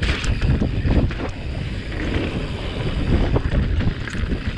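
Wind rushing over a helmet-mounted camera's microphone as a mountain bike rides down a dirt singletrack, with the rumble of the tyres on the ground and frequent short clicks and knocks from the bike rattling over the bumps.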